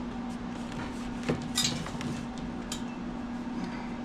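A few sharp metallic clinks of hand tools against metal while working on turbo bolts in an engine bay, over a steady low hum.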